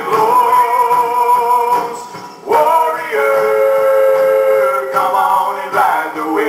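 Worship song: a singer holding long notes over instrumental accompaniment, with a short dip a little over two seconds in before the voice comes back on a long held note.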